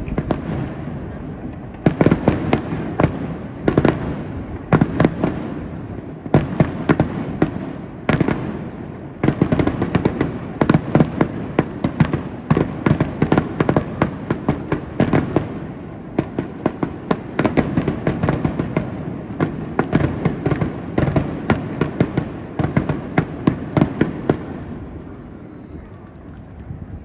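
Aerial fireworks display: a dense barrage of shells bursting, many sharp bangs a second over a continuous rumble. It thins out near the end.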